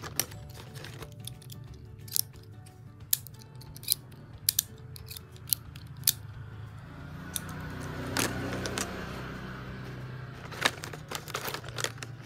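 Sharp clicks and taps of small plastic stationery pieces being handled and snapped, irregularly spaced, with a few seconds of rustling in the middle, over background music.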